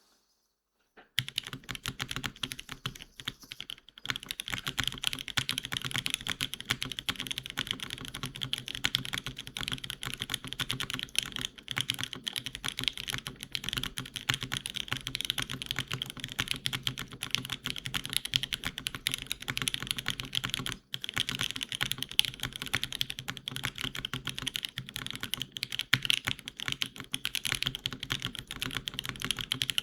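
Fast, continuous typing on a TGR Gaf910 mechanical keyboard: lubed and filmed Popus linear switches on a top-mounted aluminium plate, with GMK keycaps. A dense run of keystroke clacks starts about a second in and breaks briefly twice.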